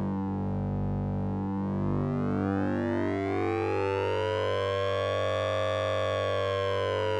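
Synthesized electronic tone made with oscillator sync and ring modulation: a steady low hum under a cluster of stepped tones, with the upper overtones slowly swooping down, then up, then starting back down, like a slow siren sweep.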